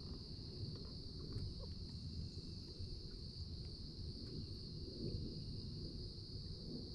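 Steady high-pitched drone of an insect chorus, crickets or similar, over a continuous low rumbling noise, with a few faint ticks.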